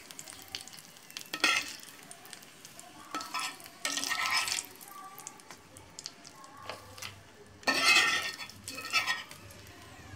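Steel ladle scraping and tapping in a pan of hot ghee tempering (tadka with curry leaves and mustard seeds) as it is spooned out in several short scrapes, with light sizzling of the hot oil.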